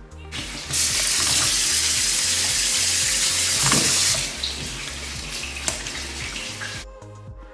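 Water running and splashing hard into a stainless-steel kitchen sink for about three and a half seconds, then going on more softly while pasta drains in a mesh strainer.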